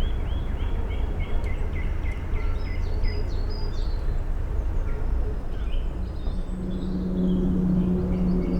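Woodland songbirds singing over a steady low rumble. A fast run of about a dozen quick repeated notes fills the first three seconds, with scattered higher calls after it. A steady low hum comes in about six seconds in.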